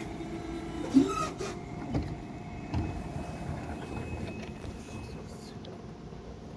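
Class 423 S-Bahn electric multiple unit pulling away, its electric drive giving a steady whine of several tones that fades as it leaves. A sharp clunk about a second in, then smaller knocks about two and three seconds in.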